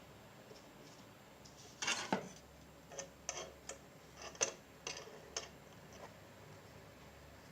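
A series of about eight sharp little clicks and taps, irregularly spaced, from tools and the circuit board being handled on a workbench while wiring the amplifier board.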